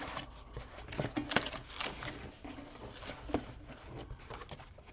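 Light clicks and knocks of a small mini toolbox being handled and opened, in a scattered run with the sharpest knock about a second and a half in.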